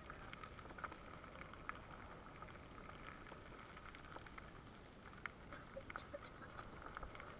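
Bicycle tyres rolling over a loose gravel track: scattered small crunches and clicks over a low steady rumble.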